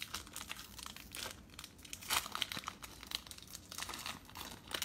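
Foil baseball-card pack wrappers crinkling and tearing as packs are ripped open by hand, in irregular crackles with a louder rip about two seconds in.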